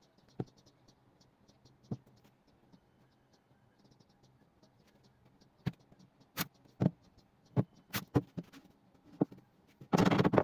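Scattered knocks and clicks at irregular intervals, with a short, louder scraping rustle near the end.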